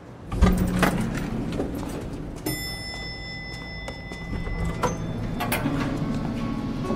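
Background music starts about half a second in, with a steady high tone held for about two seconds in the middle.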